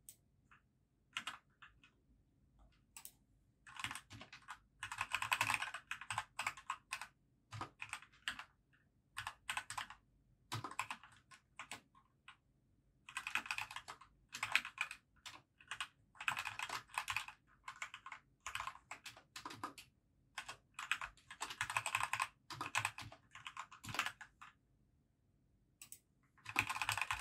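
Typing on a computer keyboard: irregular runs of fast keystrokes, some lasting a few seconds, broken by short pauses and single key presses.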